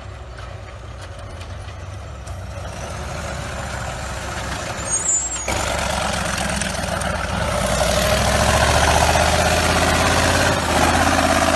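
Off-road vehicle engine running under load, getting louder about halfway through and swelling further a couple of seconds later.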